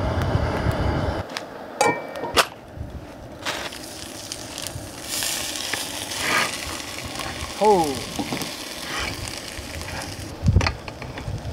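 Leftover lasagna sizzling as it heats in cookware, with a few sharp clinks and knocks of the cookware.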